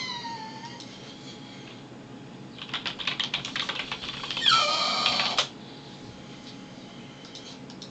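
Pit bull-type dog crying in its crate: a high whine falling in pitch right at the start, then a louder, higher whine lasting about a second, about four and a half seconds in. Between the two, a quick run of sharp clicks.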